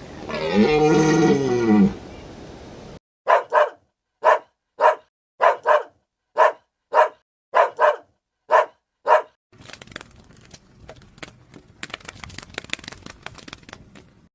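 A long pitched animal call, then a dog barking about ten times in an even rhythm, followed by a faint stretch of crackling clicks.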